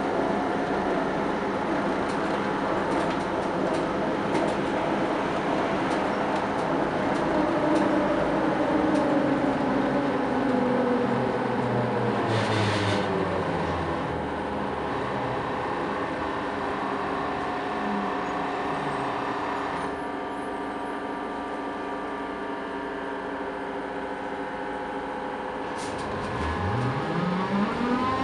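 Interior of a Škoda 15Tr articulated trolleybus on the move: the electric traction drive's whine falls in pitch over several seconds as the vehicle slows, with a short hiss about twelve seconds in. Then comes a steadier, quieter running hum, and near the end the whine rises sharply again as it picks up speed.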